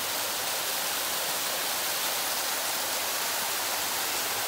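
Waterfall cascading over rock close by: a steady rush of falling water.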